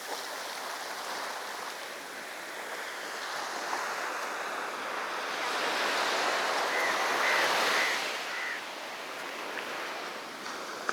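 Sea surf on a beach: waves breaking and washing up the shore, one wave swelling to its loudest about six to eight seconds in before receding.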